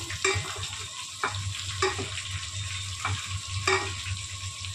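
Stuffed brinjals frying in oil in a metal pot, a steady sizzle, while a wooden spoon stirs them and knocks against the pot about five times.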